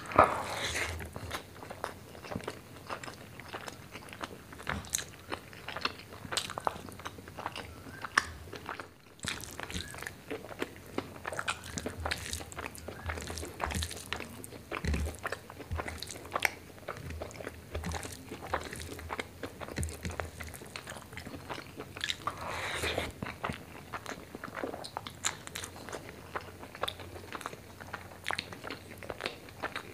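Close-up eating sounds of rice and chicken liver and gizzard curry eaten by hand: wet chewing and lip smacking, with the soft squish of fingers mixing rice on the plate between mouthfuls. A constant run of small irregular clicks and smacks, with a sharp louder click at the start.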